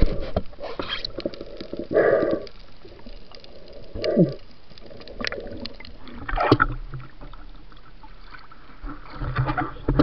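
Muffled underwater water noise from a night spearfisher swimming with the camera, broken by short gurgling bursts about every two seconds. Near the end it turns to louder sloshing and rumbling as the camera nears the surface.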